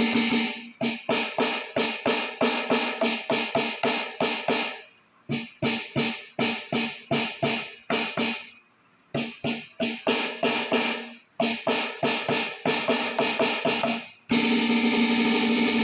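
Alesis Crimson II electronic drum kit's dual-zone snare pad being struck in quick runs of about four hits a second, sounding its sampled drum voices through the module. The runs break off twice, and there is a held, pitched electronic tone at the start and again near the end.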